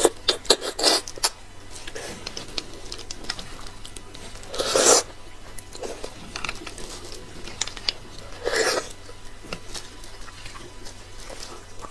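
Close-up eating sounds of stewed bone marrow: quick wet chewing clicks and mouth smacks at the start, then two louder, short wet mouth sounds about five and eight and a half seconds in.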